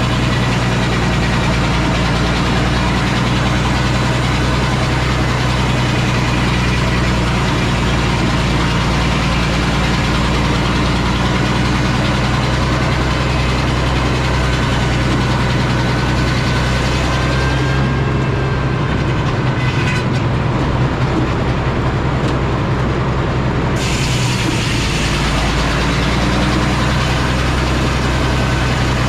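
Engine powering an antique Frick sawmill running steadily and loud. From about 18 to 24 seconds in, the high hiss drops away and the low hum shifts, then both return.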